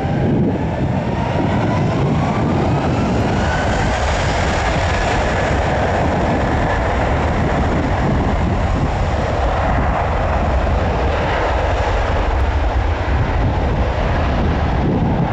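An airliner's engines running loud and steady, with a thin whine that rises in pitch over the first five seconds or so and then holds.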